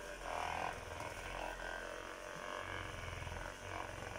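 Handheld percussive massage gun running against the shoulder, its motor giving a steady low buzz with a rapid, even hammering pulse.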